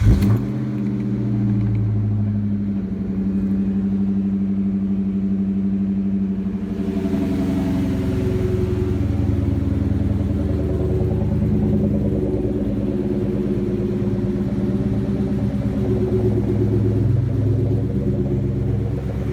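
2004 Mustang SVT Cobra's supercharged 4.6-litre V8 catching on the key and settling into a steady idle. It starts on a freshly fitted 12.4-volt battery, the earlier no-start and clicking having been a dead battery.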